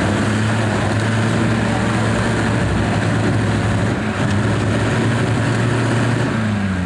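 Engine of a modified Toyota Land Cruiser 40-series off-road truck working under load as it crawls over a wrecked car: a steady, loud drone that drops in pitch near the end.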